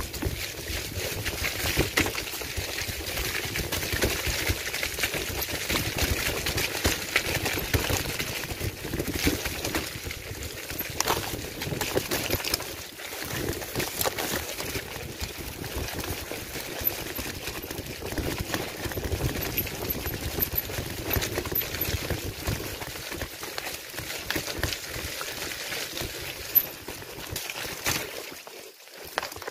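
Continuous rattling and knocking of a bike jolting over a rough dirt trail, with wind and brush noise over the microphone; the clatter eases a little partway through.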